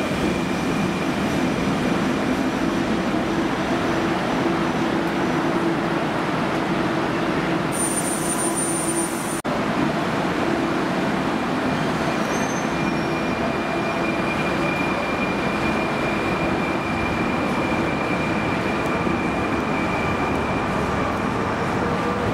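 Fertagus series 3500 double-decker electric multiple unit running alongside the platform: a steady rail rumble with a motor whine on top. There is a brief drop about nine seconds in, and a whine rises near the end.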